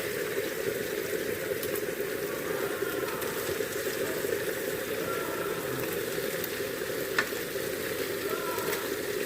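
Pork belly sizzling steadily in a frying pan over high heat, with a single sharp click about seven seconds in.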